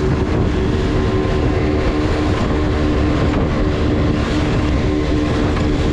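A small boat running fast over the sea: a steady engine hum under the rush and splash of water off the hull, with wind on the microphone.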